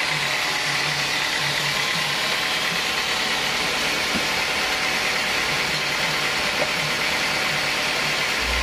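Homemade band sawmill running, its motor and band blade making a steady, even whirring noise.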